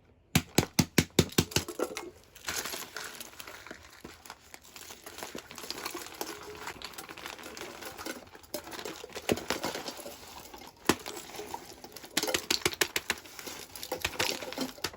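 Fidget toys being handled: quick runs of plastic clicking and tapping, with crinkling in between.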